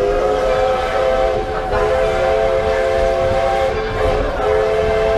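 A restored 1912 steam locomotive's whistle sounds a chord in three long blasts with short breaks between them, over the low rumble of passenger coaches rolling past.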